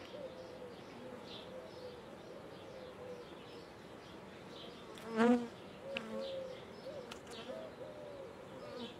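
Honeybees buzzing around an opened hive, a steady wavering hum with single bees swooping past close by. About halfway through, a short voiced sound rises briefly above the hum.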